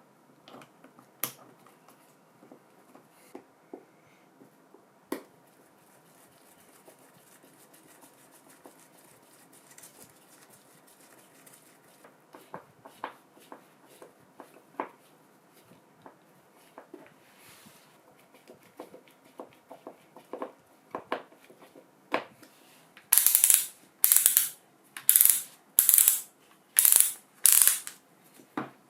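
Scattered light clicks and knocks of small parts being handled and worked, then six short, loud, hiss-like bursts about a second apart near the end.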